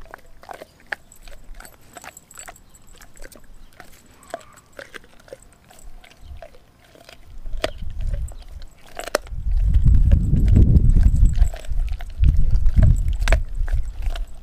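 Doberman gnawing a frozen raw pig's foot: irregular sharp crunches and clicks of teeth on bone and frozen meat. A low rumble comes in about ten seconds in and again near the end, louder than the chewing.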